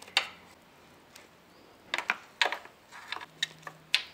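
Hands handling wiring and small plastic parts in a motorcycle's exposed front end: a scatter of about half a dozen sharp clicks, taps and light knocks with rustling between them.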